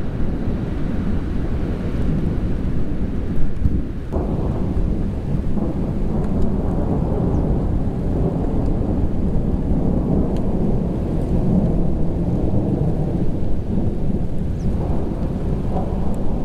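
Near-continuous rolling thunder from a supercell thunderstorm: a deep rumble that barely lets up, with a short dip about four seconds in.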